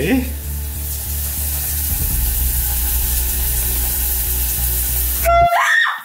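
Shower water running, a steady hiss, under background music with a steady beat; about five seconds in, a short loud blast from a handheld canned air horn.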